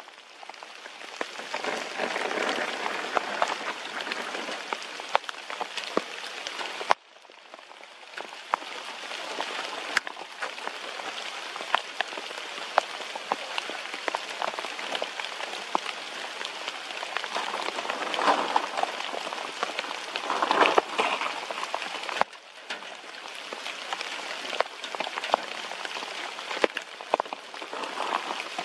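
Steady rain falling, with many individual drops ticking sharply close by. The sound drops away abruptly twice, about 7 and 22 seconds in, and builds back up each time.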